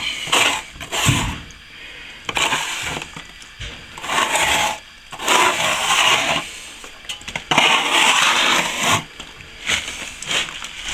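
Steel trowel scraping across a setting sand-and-plaster patch in repeated strokes about a second long, working it flat level with the old wall.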